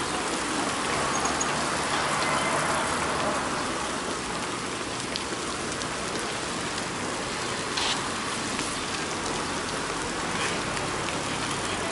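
Steady hiss of rain and of bicycle tyres rolling over wet asphalt as a column of cyclists passes, with a brief click about eight seconds in.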